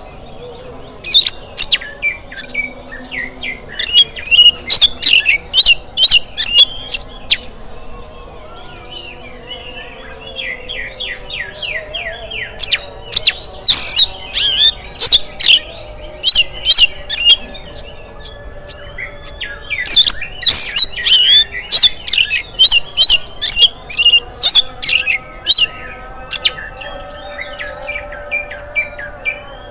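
Oriental magpie-robin (kacer) singing loudly in rapid runs of sharp, high notes. There are three long bouts with softer twittering between them.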